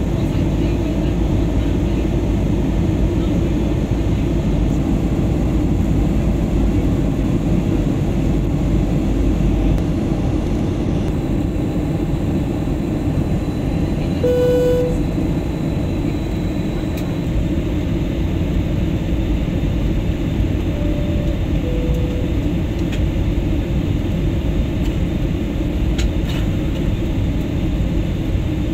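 Steady low roar of an airliner's cabin noise, jet engines and airflow heard from inside the cabin, with a few short tones about halfway through.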